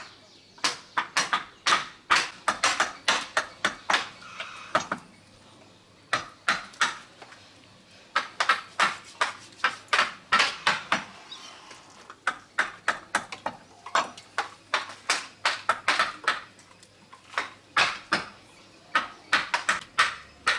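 Wood-carving chisel struck in quick runs of sharp taps, several a second, cutting chips from a block of wood, with short pauses between runs.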